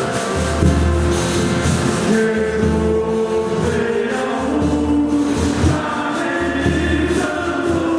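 Folia de Reis group singing a devotional song in several voices, holding long notes that step from pitch to pitch, over instrumental accompaniment with a recurring low beat.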